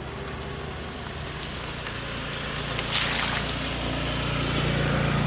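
A motor vehicle's engine running steadily and growing louder as it approaches, with a brief splashing hiss about three seconds in, typical of tyres passing through a puddle.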